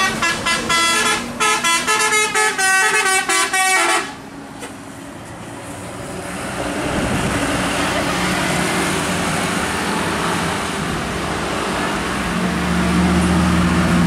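Tour bus telolet horn (Basuri type) playing a quick tune of short notes for about the first four seconds, then the rumble of passing bus and traffic. A steady low hum comes in near the end.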